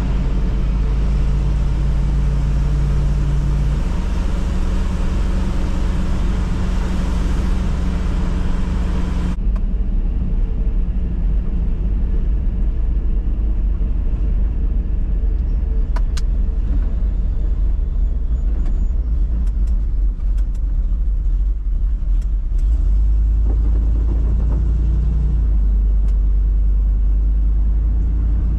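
Farm truck's engine running as it drives, a steady low drone whose pitch shifts about four seconds in and again near the end. A broad hiss drops away suddenly about nine seconds in, and a few sharp clicks sound midway.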